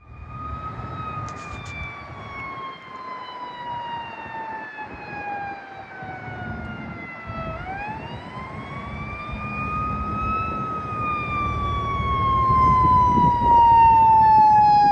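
Fire ladder truck's siren wailing: a slow fall in pitch over about seven seconds, a rise, then another slow fall, growing louder toward the end. The low rumble of the truck's engine runs underneath.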